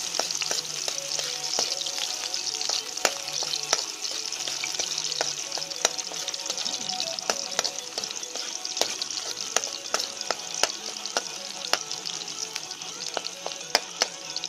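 Chopped garlic frying in hot cooking oil in a metal wok: a steady sizzle with frequent sharp pops and clicks as a metal spoon stirs it.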